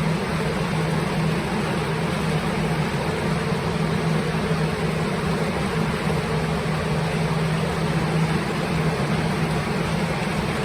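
Plastic air-mover drying fans running steadily, giving a loud rush of air over a low hum, as they blow air across a water-soaked ceiling to dry it.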